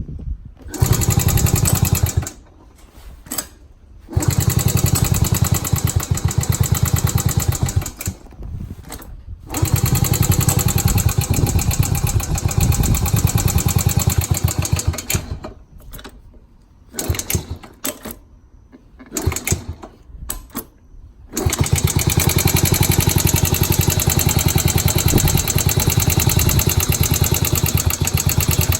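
Honda Super Cub's small single-cylinder engine running in several stretches that cut off abruptly, then running steadily from about two-thirds of the way in. The run carries the abnormal engine noise the owner is asking about.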